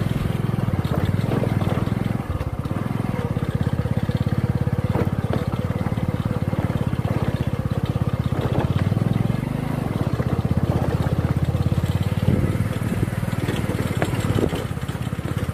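Motorcycle engine running steadily while riding along a dirt track.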